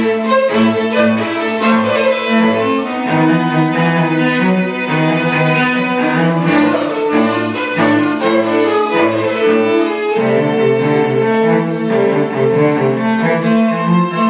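String quartet of violins, viola and cello playing together, with held low cello notes under moving violin lines.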